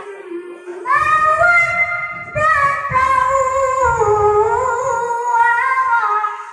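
A child's voice chanting the Qur'an in the melodic qiroah style over a PA system: a phrase of long held notes with wavering ornaments that starts about a second in and later sinks in pitch.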